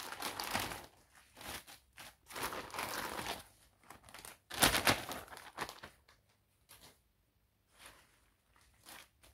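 Plastic balloon bag crinkling and deflated latex balloons rustling as they are handled and piled, in several bursts, the loudest about four and a half seconds in. Only a few soft rustles after about six seconds.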